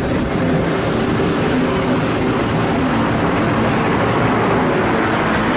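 Supercharged engine of a front-engined slingshot dragster idling loud and steady, with a fast, uneven low pulse.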